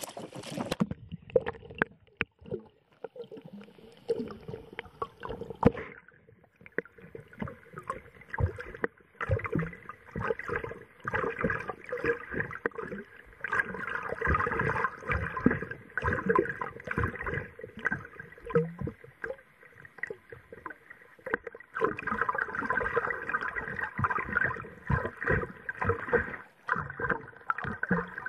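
Muffled gurgling and lapping of lake water with irregular knocks and crackles, heard through a submerged camera's waterproof housing. Wind noise on the microphone cuts out about a second in as the camera goes under.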